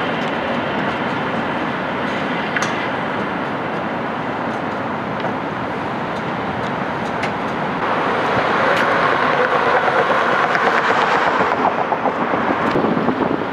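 Tatra T3 tram rolling over worn track: a steady rumble of wheels on rail that grows louder and rattles from about eight seconds in.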